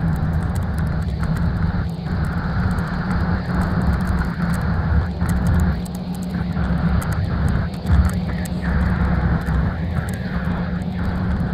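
Steady low rumble of a coach's engine and tyres, heard from inside the passenger cabin while cruising on a motorway.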